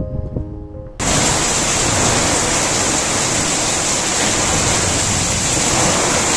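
Background music for about a second, then a sudden cut to a loud, steady hiss of heavy rain.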